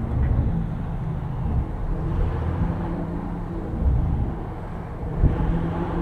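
BMW's engine and exhaust running, heard from inside the car's cabin: a low, steady drone that swells and eases several times.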